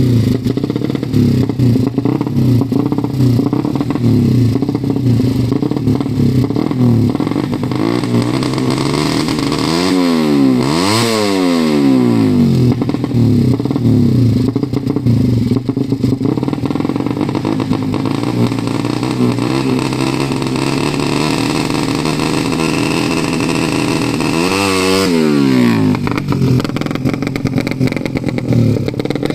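Tuned Suzuki Satria FU motorcycle engine with a ported head, running at a steady, loud idle. The throttle is blipped so it revs up and falls back, once about a third of the way in and again near the end.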